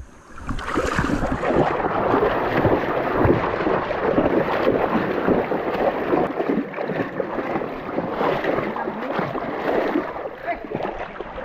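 Rushing, splashing river water around a kayak launched on a count of three. It starts suddenly about half a second in and eases off near the end.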